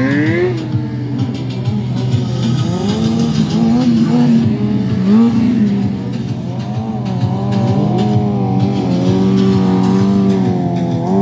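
Sport motorcycle engine revving, its pitch rising and falling again and again as the throttle is worked through wheelie stunts.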